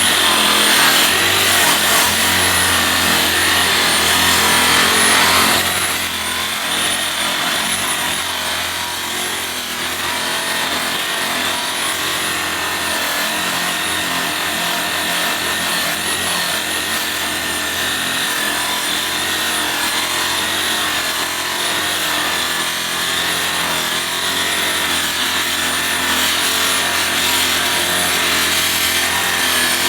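Electric machine buffer running steadily with its pad polishing an aluminum wheel, a steady motor whine over a rubbing hiss. It gets a little quieter and duller about six seconds in, then holds steady.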